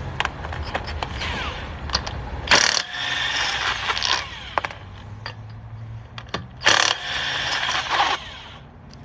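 Impact gun running in two bursts of about a second and a half each, spinning off lug nuts, with sharp metal clicks between them over a steady low hum. The gun sounds dried up and in need of lubrication.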